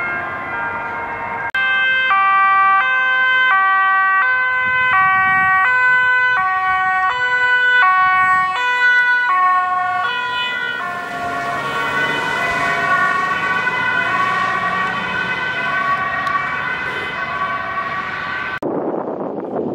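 Ambulance two-tone siren switching back and forth between a high and a low note, about two-thirds of a second on each. It comes in loud and clear about a second and a half in, then turns softer and smeared as the ambulance drives away. Near the end it gives way to a short rush of wind noise.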